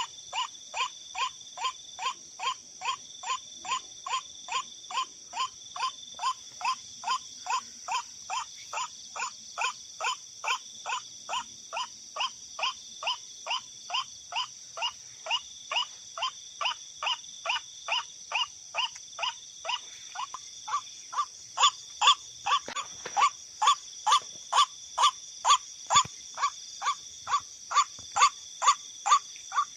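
A short call note repeated in an even, steady series, about two notes a second, which grows louder about two-thirds of the way through. Insects drone steadily in the background.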